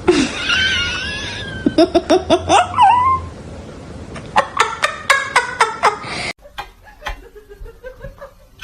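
Laughter in quick, repeated short bursts, twice, after a high wavering sound at the start.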